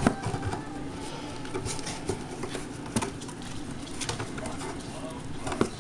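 Maltese puppies moving in and around a cardboard box, their claws pattering on a vinyl floor and scuffing the cardboard, with a few sharp taps and knocks.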